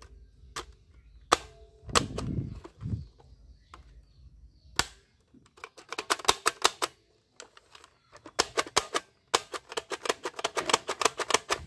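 Sharp plastic clicking from a toy gun being handled and worked: a few single clicks, then two fast runs of about eight clicks a second in the second half.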